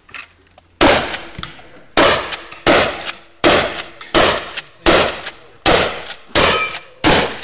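Benelli Supernova pump-action shotgun fired rapidly, nine shots about three-quarters of a second apart with the pump worked between each, the first coming almost a second in.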